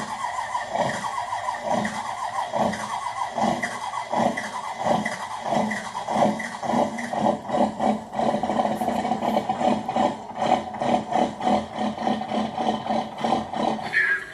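A recorded V8 diesel engine sound effect playing through a radio-controlled truck's small onboard sound system, running with an uneven chugging pulse.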